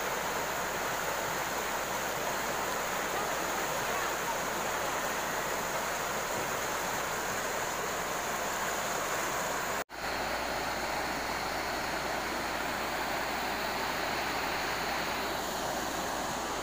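Steady rush of a shallow, fast-flowing river, with a momentary drop-out about ten seconds in.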